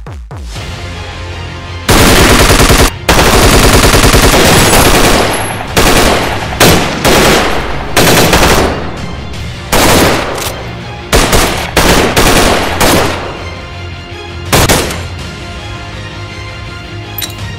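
Automatic gunfire: a long burst of rapid shots starting about two seconds in, then a string of shorter bursts and single shots that stop a few seconds before the end, over a low background music score.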